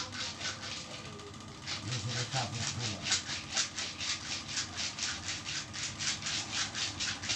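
Hands rubbing briskly back and forth over bare skin on the back of a leg during a massage: a rhythmic swishing of about four strokes a second, getting louder about two seconds in.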